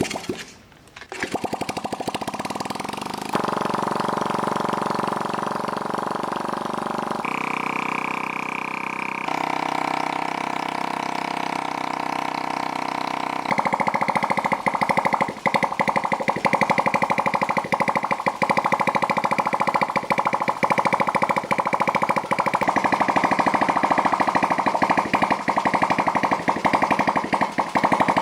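Background music of sustained chords changing every few seconds, with a fast busy rhythm joining about halfway through.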